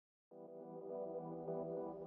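Ambient music made from a MIDI file starts suddenly about a third of a second in, after silence, with steady held tones.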